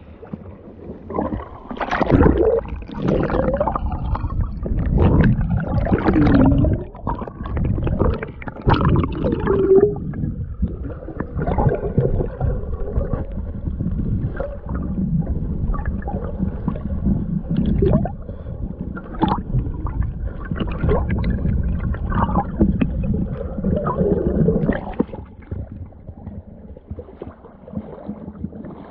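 Muffled gurgling and sloshing of water heard through a submerged action camera, with scattered knocks and bumps as it moves about underwater.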